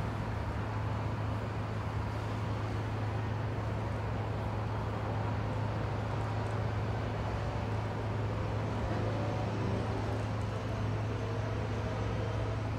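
Outdoor city ambience: traffic noise under a constant low mechanical hum.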